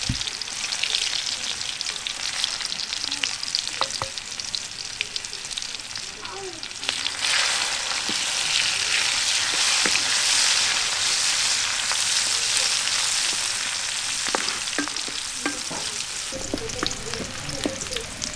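Chopped onion sizzling in hot oil in a karai (wok), stirred with a spatula that taps and scrapes the pan now and then. The sizzle grows louder about seven seconds in.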